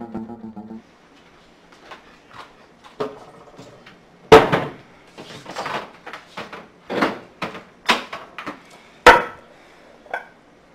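Kitchen cabinet doors opening and shutting and a bottle being handled: a series of separate knocks and clatters, the loudest about four seconds in and again about nine seconds in, ending with a short ringing clink.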